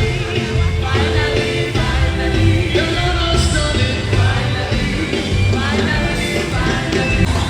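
Upbeat music with singing over a steady, heavy bass.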